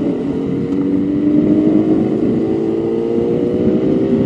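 400 cc motorcycle engine under way, its note rising slowly and steadily as the bike accelerates, with wind and road rush over it.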